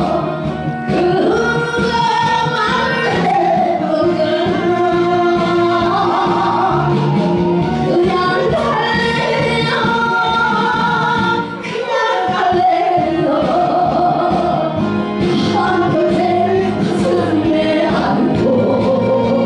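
A woman singing a Korean song into a handheld microphone, amplified through a PA over instrumental accompaniment, with a short break between phrases about twelve seconds in.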